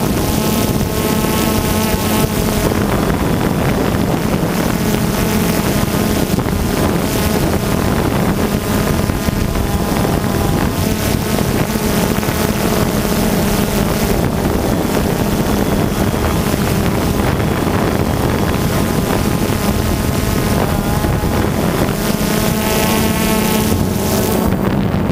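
Multirotor drone's electric motors and propellers buzzing steadily, picked up by its own onboard camera, the pitch wavering slightly as it holds and turns, with wind noise on the microphone.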